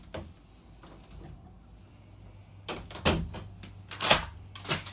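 Light knocks and clunks of a bedroom door being handled, a few of them in the second half, over a faint low hum.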